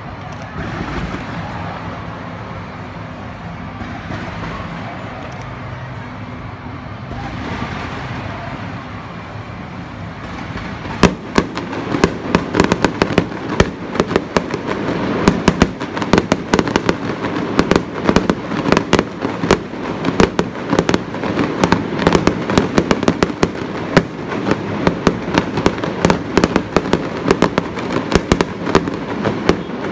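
Fireworks display: a lull with only steady background noise, then about eleven seconds in dense, rapid crackling of many small bursts breaks out and keeps going, with louder pops standing out.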